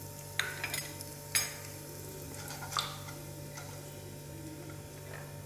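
Cumin seeds sizzling faintly in hot oil in a nonstick pot, with a handful of light clicks and taps of a wooden spatula and utensils against the pot as asafoetida is added and stirred in.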